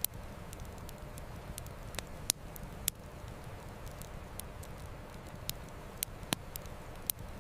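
Campfire crackling, with sharp irregular pops, several close together, over a steady low rush of flowing river water.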